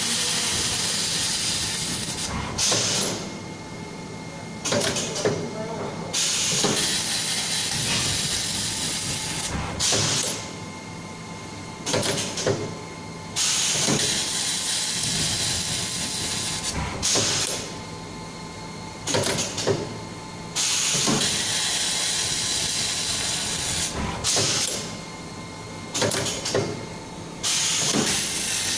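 Automatic laser saw-segment welding machine working through its cycle: a steady hiss that drops away every few seconds into short quieter gaps, with clicks and knocks as it moves on to the next segment on the blade.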